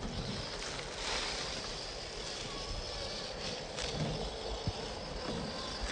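Axial SCX10 III scale RC crawler with a Holmes Hobbies Trailmaster 550 brushed motor, driving slowly over rock and dry leaves: a steady motor and gear whir with a few small clicks and crunches from the tyres, over a hiss of outdoor wind.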